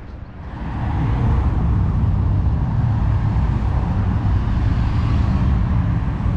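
Street traffic: cars driving past on the road, a steady rumble of engines and tyres that swells about half a second in and stays loud.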